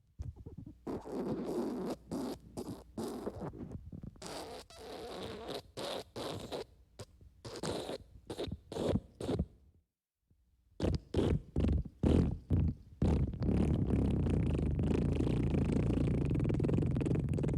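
Wet fart sound effect: a long run of short, wet, sputtering fart bursts. There is a brief break about ten seconds in, then a few more bursts. From about thirteen seconds a single low, continuous sputter carries on.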